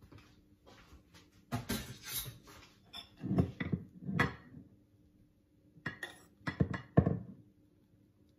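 A metal spoon scooping whipped egg-white meringue out of a glass bowl and dropping it into a ceramic bowl of batter. It scrapes and clinks against the bowls in three short bursts, with the sharpest clink near the end.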